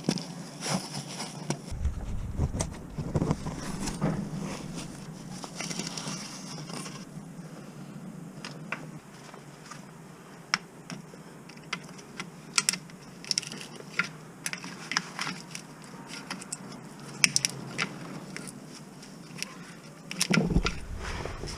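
Metal tools and parts being handled: irregular sharp clicks, clinks and scrapes, with a couple of brief low knocks.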